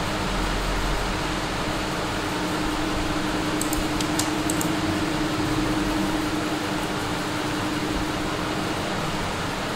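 Steady fan-like room noise, an even hiss with a low hum, picked up by the recording microphone. A few faint clicks come about four seconds in.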